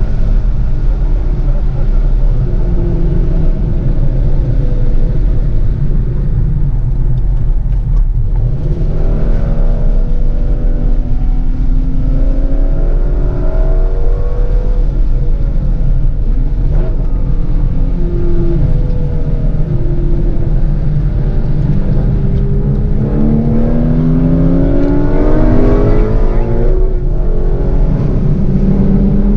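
Shelby GT350's 5.2-litre flat-plane-crank V8 under hard acceleration, its pitch climbing and then dropping at gear changes, a couple of times, over a heavy steady low rumble.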